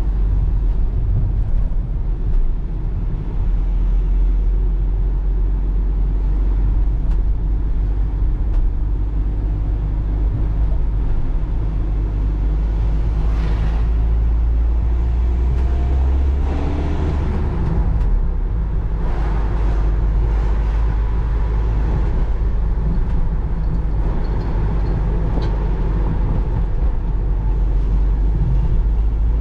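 Volkswagen T5 panel van's 2.0 TDI four-cylinder diesel (84 PS) running under way, heard from inside the cab as a steady low engine and road rumble, with a brief change in engine note a little past halfway.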